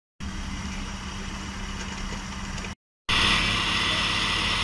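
An engine idling steadily with a constant low hum, in two stretches broken by brief cuts to silence; the second stretch, from about three seconds in, is louder and brighter.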